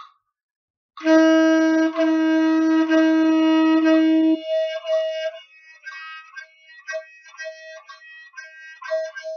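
Saxophone playing a loud, long held note starting about a second in and lasting about four seconds, then softer, shorter detached notes.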